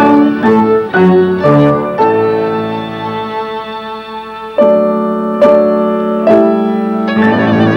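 Slow instrumental background music on piano and violin: chords struck and held, with one long held chord in the middle and new chords entering every second or so after it.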